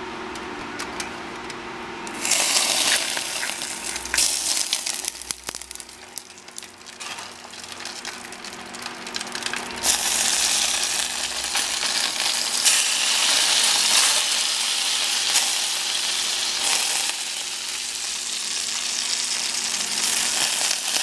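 Smoking-hot oil poured from a small saucepan onto whole fish in foil, sizzling hard as it crisps the skin. The sizzle starts about two seconds in, eases off for a few seconds, and comes back stronger from about ten seconds on, over a steady low hum.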